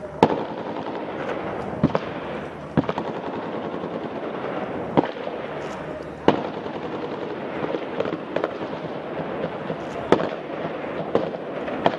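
Sporadic gunfire in an urban firefight: single shots at irregular intervals, about nine in all, some a second or two apart, over a steady background noise.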